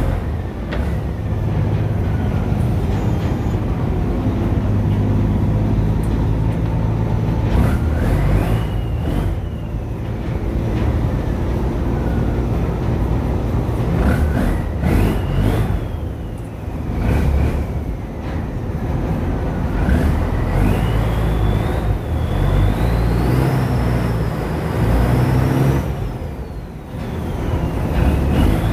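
Motor boat engine running steadily, with a high whine that rises and falls several times.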